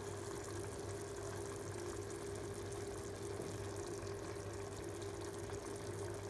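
Steady low mechanical hum with an even hiss behind it, unchanging throughout.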